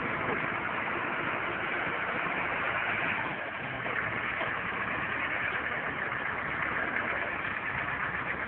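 Ostrówek backhoe loader's diesel engine idling steadily.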